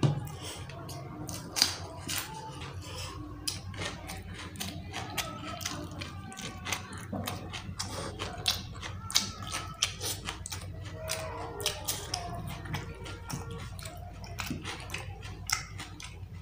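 Close-up eating sounds: wet chewing, lip smacks and the squish of curried chicken skin and rice eaten by hand, a dense run of small clicks.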